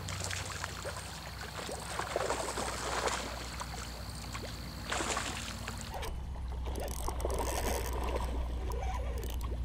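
A hooked bowfin splashing and sloshing at the surface as it is reeled in close to the bank, the water noise uneven with a short louder splash about five seconds in.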